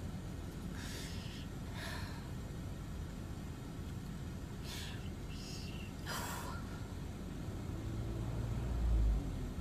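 A person's short, sharp breaths, several in a row, over a steady low background hum. Near the end a low rumble swells, then drops off suddenly.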